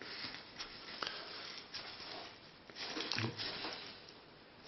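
Handling noise: rustling with light clicks and knocks as the air rifle is moved about on a fabric beanbag rest, with a short murmured voice about three seconds in.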